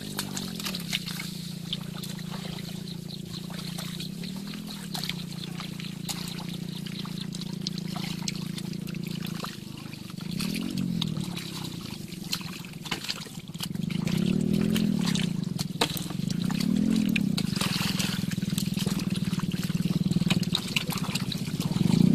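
Wet mud and shallow water sloshing and trickling as hands dig through a muddy pool, with many small splashy clicks. Under it runs a low steady engine drone that swells several times, louder in the second half.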